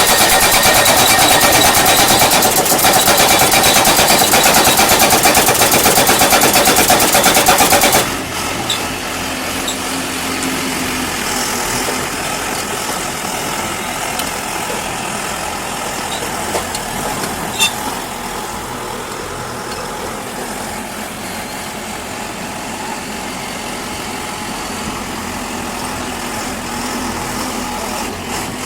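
Pile driver hammering rapidly over its engine for about eight seconds, then the hammering cuts off suddenly and the engine keeps idling steadily.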